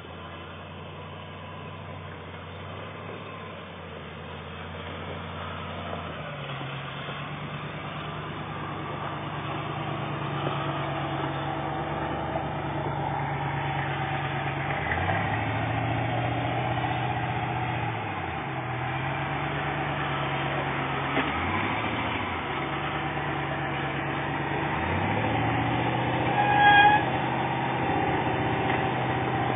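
A modified off-road 4x4's engine running at low revs on a rock climb, revving up and settling back several times. A short, loud horn-like toot sounds near the end.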